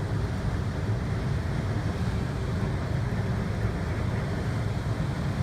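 Steady low rumble of the Celebrity Equinox cruise ship passing close by, mixed with wind on the microphone.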